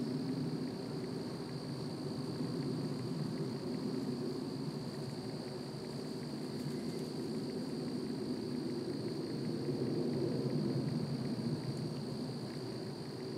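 Steady woodland ambience: a constant high-pitched insect trill over a steady low rushing noise.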